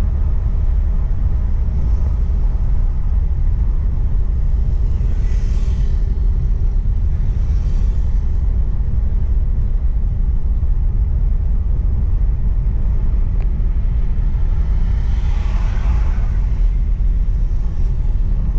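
Steady low rumble of road and engine noise inside a moving car's cabin. There are a few brief rushing swells of hiss, one about a third of the way in and a louder one near the end.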